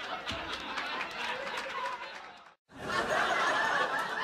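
Audience laughing and chattering, broken by a moment of silence about two and a half seconds in where the audio cuts, then resuming.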